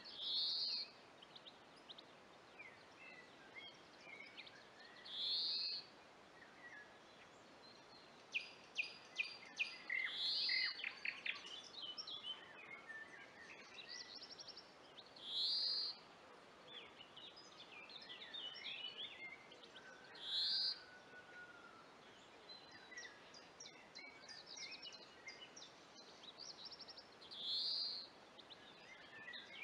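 Several songbirds singing in woodland. One bird repeats a short high phrase about every five seconds, the loudest sound, while others fill the gaps with chirps and fast trills, the busiest stretch coming about a third of the way in.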